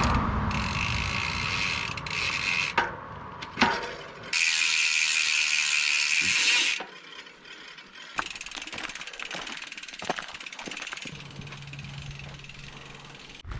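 Mountain bike freehub buzzing in two long stretches as the rider coasts, with two sharp knocks between them. After that come quieter rattles and ticks from the bike.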